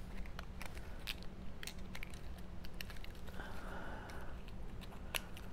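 Cardstock paper pieces being handled and slotted together by hand: irregular light clicks and ticks of the stiff paper and fingertips, with soft rustling.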